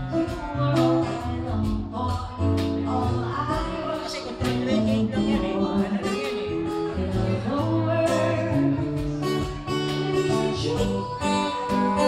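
Live acoustic band playing a song: singing over acoustic guitar, with a steady percussion beat.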